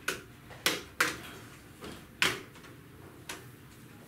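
About six sharp clicks and knocks at irregular intervals, the sound of a plastic laptop and its parts being handled and set down.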